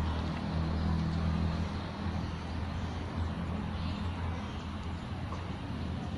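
A motor engine running with a steady low hum, a little louder in the first couple of seconds, over a hiss of outdoor noise.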